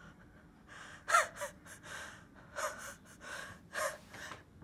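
A man gasping and panting for breath in a run of about six or seven sharp gasps, starting about a second in, the first one the loudest with a falling voiced edge. This is a waking gasp after a nightmare.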